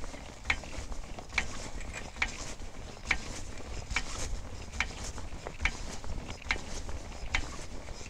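A car jack being worked by its long handle, giving one sharp click per stroke in an even rhythm, about nine clicks at just over one a second.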